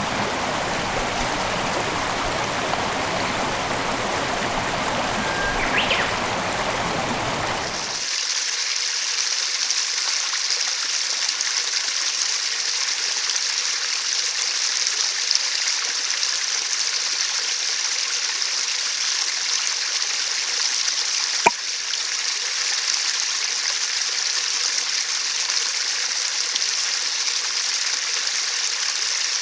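Mountain headwater stream flowing steadily; about eight seconds in the sound changes abruptly to a different stream with a higher, hissing rush and little low rumble. A single sharp click about twenty seconds in.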